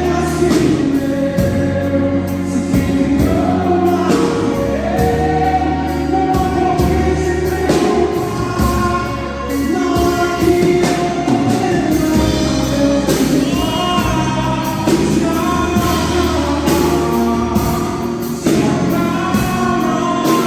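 Gospel hymn sung with instrumental accompaniment and a steady beat.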